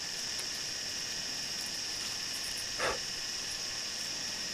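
Insects chirring in a steady, high, even drone, with one brief louder sound about three seconds in.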